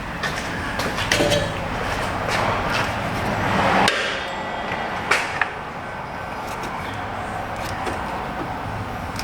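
Hands working aluminum A/C lines against the vehicle body: scraping and rubbing with a few sharp clicks and light knocks, and a swell of rubbing noise that builds and then stops abruptly about four seconds in.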